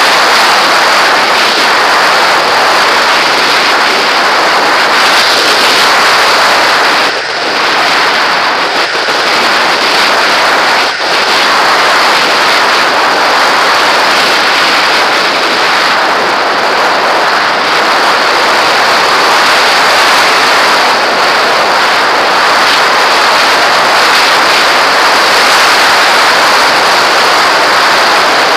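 Loud steady rush of airflow over a camera mounted on a model aircraft in flight, with no motor tone, dipping briefly twice, about seven and eleven seconds in.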